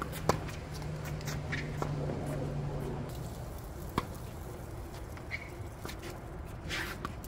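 Tennis ball struck by rackets in a rally: a sharp pop about a third of a second in and another about four seconds in, with fainter knocks in between. A low steady hum runs through the first three seconds.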